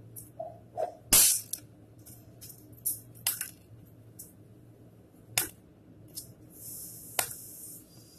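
Snap pops (bang snaps) thrown down hard, each going off with a sharp crack, about one every two seconds; the first, about a second in, is the loudest. Fainter clicks and a short hiss come between the cracks.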